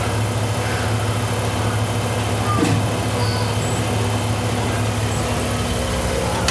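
CNC milling machine running with a steady hum and hiss, and a single knock about two and a half seconds in.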